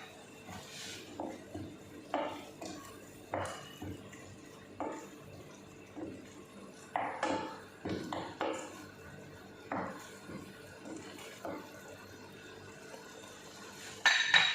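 A utensil knocking and scraping against a cooking pot while a thick sauce is stirred. The strokes come separately, roughly once a second, with a louder clatter near the end.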